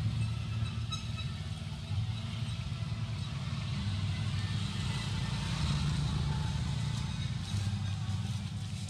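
Steady low rumble of outdoor background noise, with no clear animal calls standing out.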